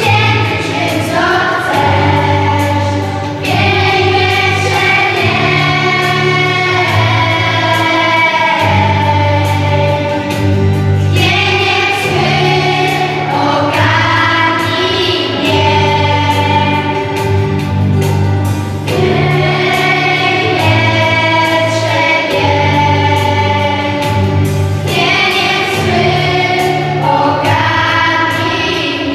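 Children's choir singing a Christian worship song, holding long notes, over instrumental accompaniment led by guitar.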